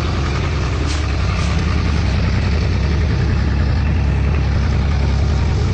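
Dodge Ram heavy-duty pickup truck engine idling steadily.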